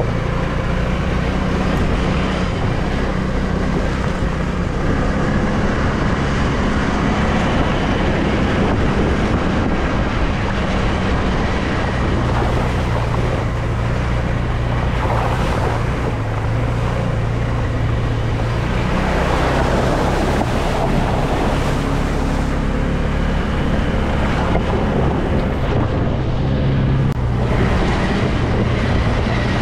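ATV engine running while under way, its pitch shifting up and down a few times with the throttle, with wind rushing over the microphone.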